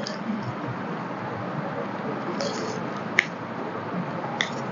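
Steady room hiss with a brief soft rustle about two and a half seconds in, then two short sharp clicks, the first one about three seconds in the loudest.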